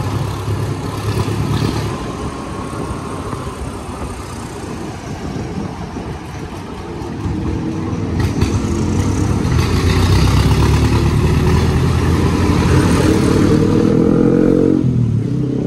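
Motor scooter ride in town traffic: a steady engine and road rumble with wind on the microphone. From about seven seconds in, an engine speeds up with a steadily rising pitch and grows louder, then falls away sharply near the end.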